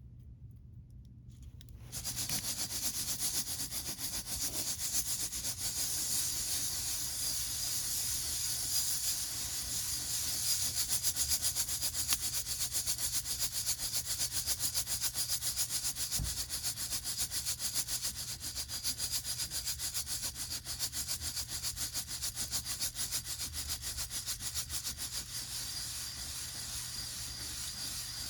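Coffee beans rattling and sliding in a hand-held mesh roasting basket as it is shaken steadily, a continuous rasping swish that starts about two seconds in.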